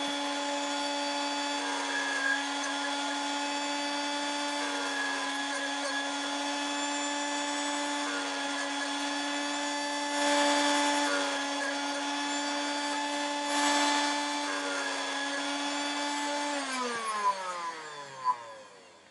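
Electric motor of a US 103 tubular key cutting machine running steadily with a high whine, its carbide end-mill cutter cutting into a tubular key blank in two short louder grinding stretches about ten and thirteen seconds in. Near the end the motor is switched off and winds down with a falling pitch, followed by two sharp clicks.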